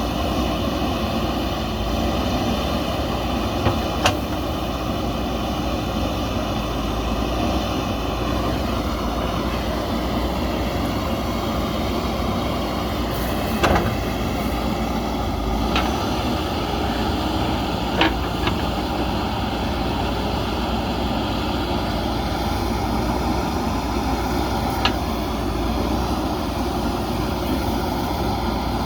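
JCB backhoe loader's diesel engine running steadily, with about five sharp clanks spread through it.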